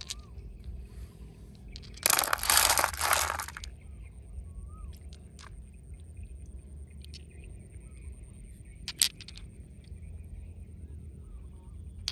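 Stones handled by hand in shallow river water: a loud, noisy burst of about a second and a half some two seconds in, then a sharp click of stone on stone about nine seconds in.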